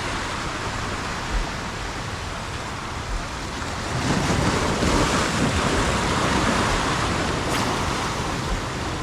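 Ocean surf washing in, steady, then swelling louder about four seconds in before it eases, with wind buffeting the microphone.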